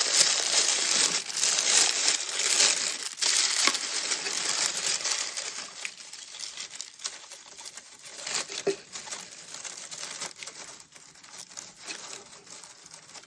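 Crinkling wrapping being unfolded by hand to free a small miniature flower from its packing. It is loudest for the first few seconds, then goes on softer with scattered crackles.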